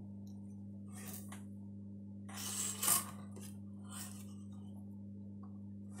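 Laptop motherboard being handled and turned over on a wooden bench board: a few brief scrapes and rustles, the loudest near the middle ending in a sharp clack, over a steady low hum.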